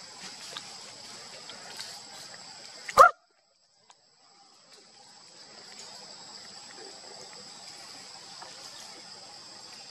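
Steady high hiss of the outdoor background, cut about three seconds in by one loud, short bark-like call, after which the sound drops out completely for about a second before the hiss fades back in.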